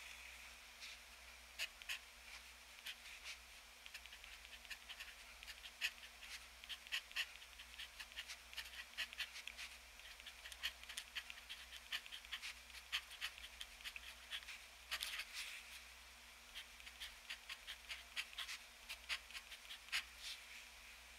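TWSBI ECO fountain pen with an extra-fine nib scratching across 75 g paper, writing Japanese characters in quick, faint strokes, with a short pause partway through.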